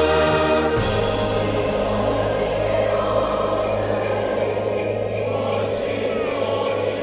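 Choral singing gives way about a second in to a sudden shimmer of sleigh bells, which keep jingling over a low steady hum.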